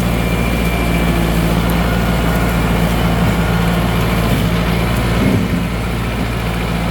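Tractor engine running steadily while the front loader, fitted with a ratchet rake, is raised. The engine note wavers briefly about five seconds in.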